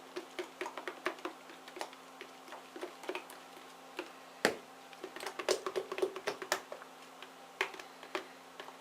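Spoon whipping thick cold-process soap batter by hand, clicking and tapping against the container in quick, irregular ticks, with one sharper knock about four and a half seconds in.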